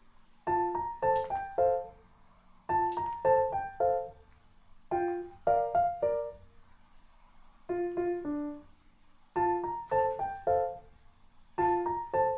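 Background music: a piano playing short phrases of a few quick notes, six in all, each about a second long with brief pauses between them.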